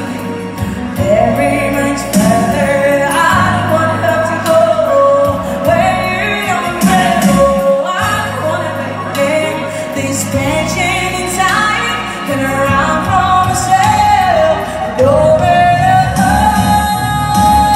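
A woman singing into a microphone in long held, sweeping phrases over sustained low instrumental accompaniment.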